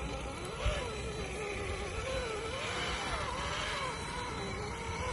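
1/10-scale RC crawler truck driving, its electric motor and gears whining, the pitch rising and falling every second or so as the throttle changes.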